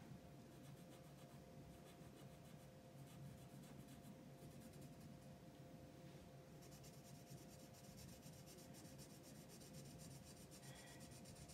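Very faint scratching of an alcohol marker's tip stroked over paper while colouring in, the strokes a little more distinct from about two-thirds of the way through. A faint steady hum sits underneath.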